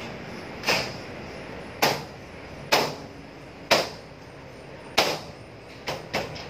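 Sharp knocks and snaps as the side frame of a pleated insert screen door is pressed and clipped into the door frame. There are five knocks about a second apart, then two in quick succession near the end.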